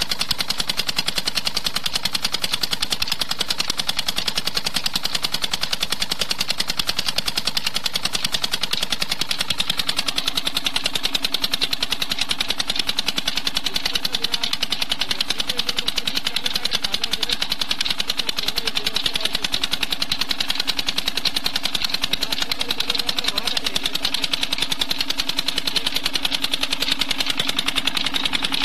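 Petter single-cylinder diesel engine running steadily on pure jatropha oil, with a rapid, even exhaust beat.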